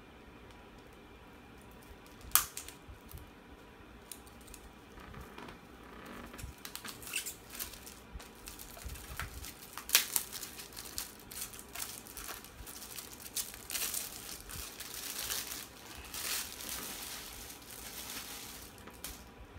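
Plastic wrapping on a Blu-ray case being cut with small scissors and peeled off, crinkling and tearing, with two sharp clicks, one about two seconds in and a louder one about ten seconds in.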